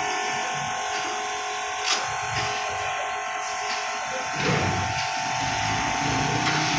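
A small electric motor running steadily with a constant buzzing whine, and a single light knock about two seconds in.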